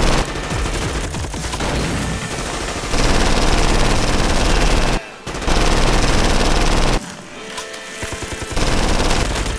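Automatic gunfire in long, rapid bursts, with a short break about five seconds in and a quieter stretch near the end before a last burst.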